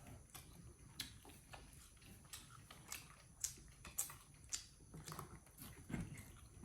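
Faint, irregular crunching clicks of a monkey biting and chewing food, about a dozen sharp ticks spread unevenly.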